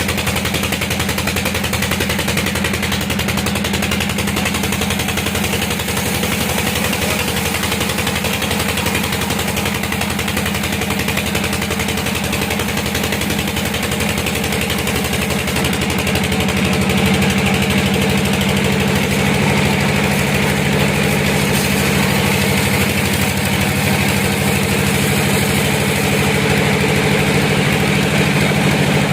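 An engine running steadily at a constant speed, growing a little louder and fuller about sixteen seconds in.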